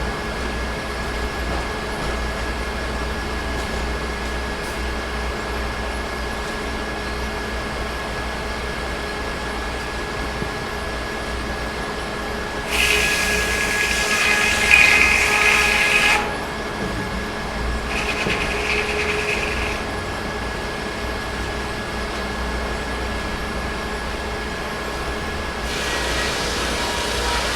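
Sawmill running steadily with a constant hum. About halfway through it turns louder and higher-pitched for about three seconds as the saw cuts through pine. A shorter such stretch follows two seconds later, and another starts near the end.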